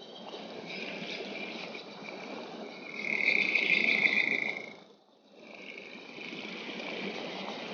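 Rushing water with a steady high trill over it, like a frog or insect chorus, loudest about three to five seconds in. Everything cuts out briefly about five seconds in, then the water and trill resume.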